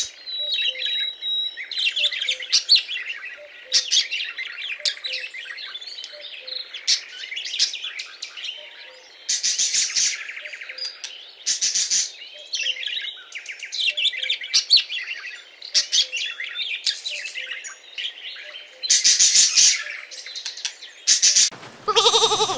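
Parrots chirping and calling in quick, high chirps, with several louder, harsh calls among them. A lamb bleats right at the end.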